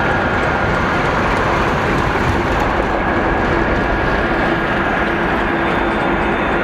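Jet airliner engines running steadily near the runway, a loud even rumble with a steady whine on top.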